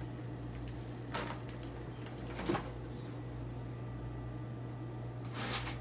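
Steady low hum with a few soft knocks and clicks, like cupboard doors and kitchen things being handled, about a second in, again about two and a half seconds in, and near the end.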